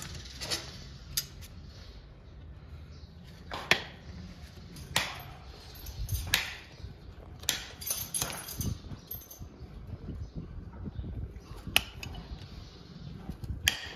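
Sharp metal clinks and taps, roughly one every second or so, as a hot horseshoe is held with tongs and worked against a horse's hoof during hot fitting; near the end, a couple of ringing hammer strikes on a steel anvil.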